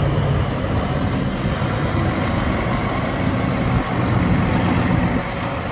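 Scania truck's diesel engine running steadily as the truck rolls slowly past, a low even rumble.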